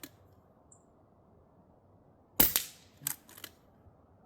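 Pinty bullpup air rifle firing a single .22 pellet about two and a half seconds in, a sharp crack, followed within the next second by two smaller sharp clicks.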